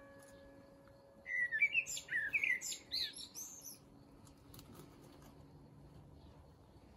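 Common kestrel giving a rapid run of shrill calls lasting about two seconds, starting about a second in.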